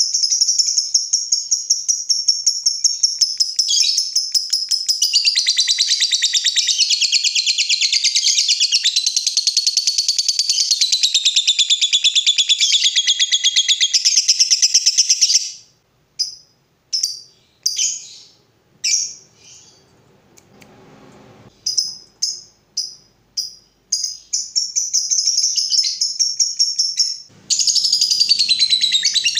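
Lovebird singing 'ngekek': a long, rapid, high-pitched chattering trill lasting about fifteen seconds, then a string of short separate chirps, and another long trill starting near the end.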